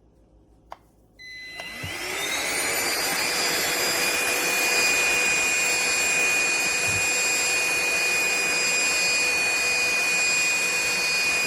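Aspiron cordless handheld vacuum cleaner starting up: a click, then the motor spins up with a rising whine and settles into a steady run with a high-pitched whine over the rush of air.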